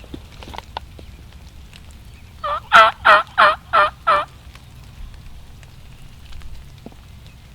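Wild turkey tom gobbling once: a loud, rapid rattling call of about six quick notes, each dropping in pitch, lasting nearly two seconds and starting a couple of seconds in.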